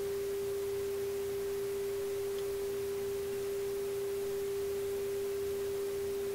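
A steady, unchanging test tone from the Marconi 201A tube radio's speaker: the signal generator's audio modulation, demodulated by the radio while its IF transformers are peaked during alignment.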